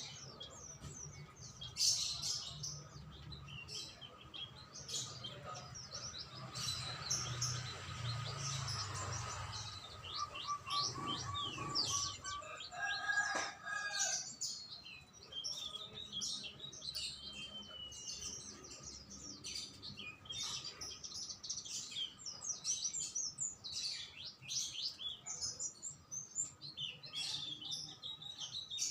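Several songbirds chirping and singing, with many short, quick, overlapping high calls and trills. A low hum sits under the birds for about the first ten seconds.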